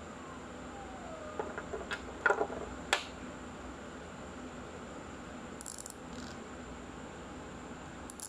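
A few sharp clicks and taps, loudest about two and three seconds in, as a mechanical spin dryer timer and multimeter probes are handled, over a steady faint hum.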